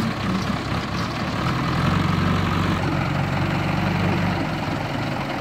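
Diesel engines of a JCB backhoe loader and a Mahindra Yuvo tractor running steadily close by, with a higher whine over them that fades about halfway through.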